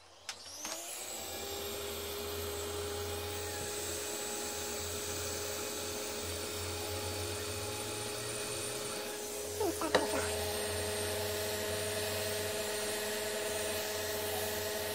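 Hot-air rework heat gun switched on, its blower spinning up with a rising whine in the first second, then blowing steadily while heating the TV main-board chip to reflow its solder. A few clicks come about ten seconds in, after which the whine's pitch shifts slightly.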